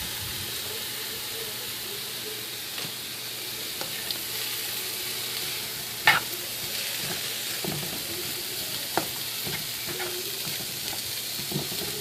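Sliced apples sizzling in a hot pan while they are stirred, a utensil knocking against the pan now and then, the loudest knock about six seconds in.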